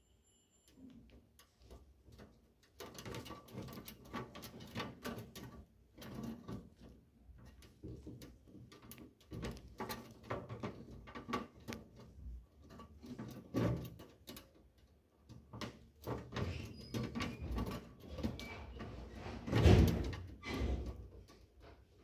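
Irregular knocking, scraping and rattling, with a loud thump near the end.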